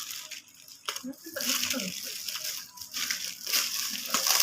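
Packaging crinkling and rustling as items are handled and unpacked, with a faint voice briefly about a second in.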